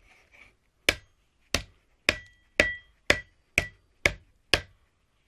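Hammer blows on metal, eight sharp strikes at about two a second, some leaving a brief metallic ring, as a washing machine motor is cut apart to get at its copper windings.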